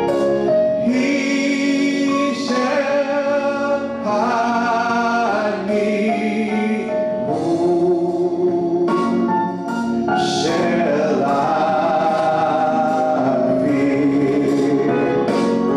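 A man singing a gospel song into a handheld microphone, holding long notes that slide from pitch to pitch.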